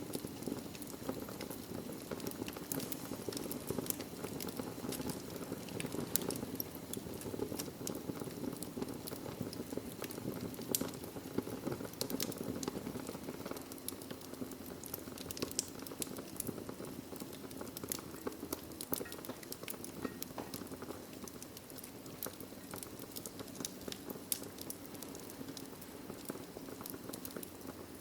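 Wood fire burning in a fireplace: a steady low rush of flames with frequent small crackles and occasional sharper pops from the logs.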